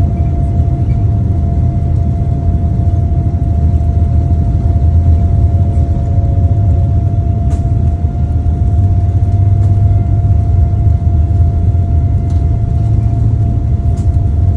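Cabin noise inside a Boeing 787-9 Dreamliner: a steady, deep rumble of engines and airflow with a constant hum tone over it, and a couple of faint clicks.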